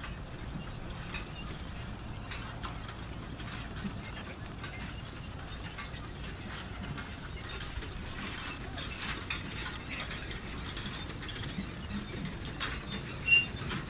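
Manure spreader in operation: a steady low drone under irregular mechanical clicking and clanking, with a sharp squeak near the end.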